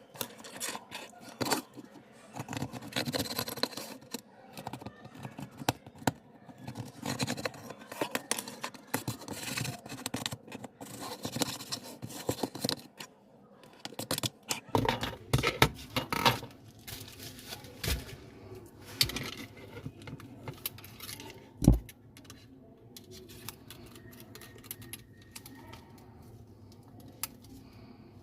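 Hand tools and parts being worked on a smartphone during a screen repair: a run of light clicks, taps and scrapes, with one sharp knock about three-quarters of the way through.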